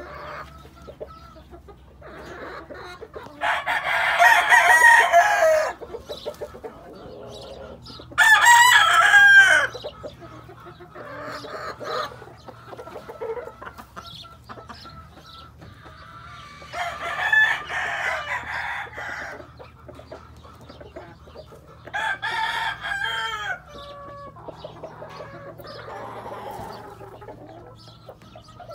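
Gamefowl roosters crowing in turn from their pens: about five crows, each a second or two long, the loudest about eight seconds in and a fainter one near the end.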